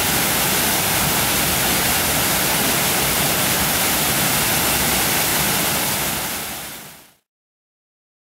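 Small waterfall of a mountain stream pouring over a stone weir: a steady rushing of water that fades out about six seconds in, leaving silence.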